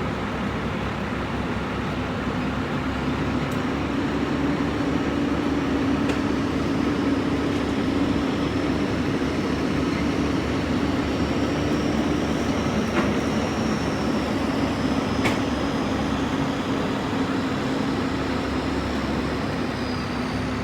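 Vehicle driving at steady speed: continuous engine and road noise with a steady low hum, broken only by a few faint clicks.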